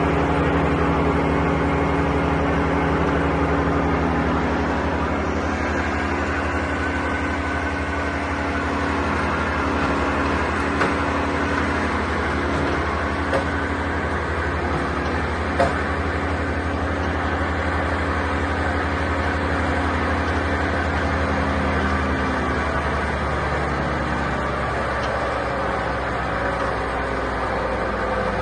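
Bandit 1590 wood chipper's engine running steadily at idle, with its note shifting slightly about three quarters of the way through and a few faint clicks.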